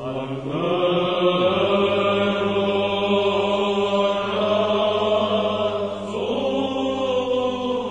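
Orthodox church chant: voices singing a slow, drawn-out melody over a steady low held drone.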